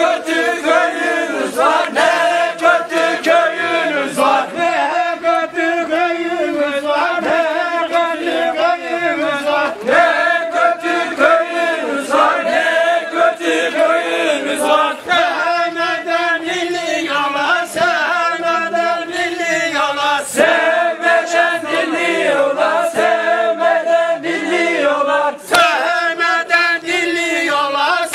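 A group of voices singing a Turkish folk song together in unison, with no instruments.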